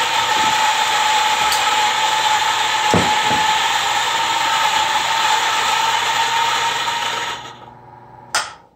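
Old restaurant-style coffee grinder running, its motor grinding espresso beans with a steady whirr and a constant hum. It winds down about 7.5 seconds in, followed by a single sharp click near the end.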